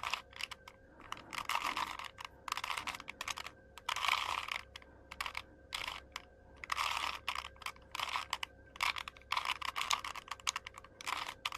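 Plastic clicking and clattering of a Rubik's cube as its layers are twisted, in quick runs of turns with short pauses between.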